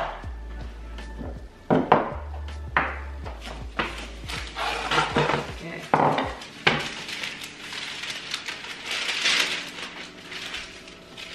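Bowls and containers set down and shifted on a kitchen counter, giving several sharp knocks, followed by a sheet of baking paper rustling as it is pulled out and spread flat.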